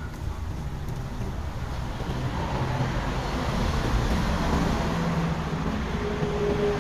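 Steady rumbling roar of the fire burning at the bottom of a roast-duck drum oven, swelling a little louder partway through.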